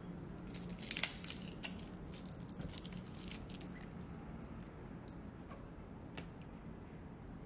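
Small paperboard drink carton being handled and opened: crinkling and crackling of the stiff paperboard, with a sharp crack about a second in, then a few lighter clicks as the spout is pinched open.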